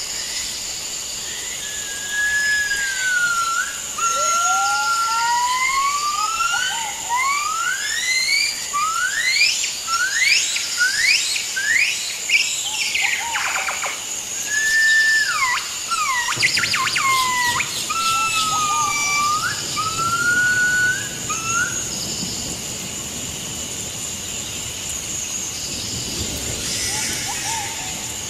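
Forest ambience: steady high insect drone, with a bird singing a run of whistled notes that sweep up and down. The whistling comes from about two seconds in to about three quarters of the way through, and then the insect drone carries on alone.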